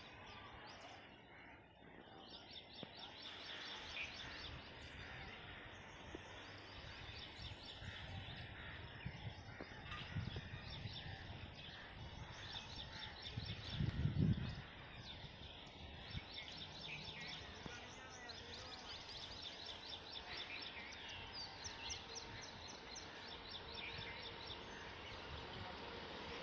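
Faint open-air ambience with birds chirping in repeated rapid, high trills, and one brief low rumble about fourteen seconds in.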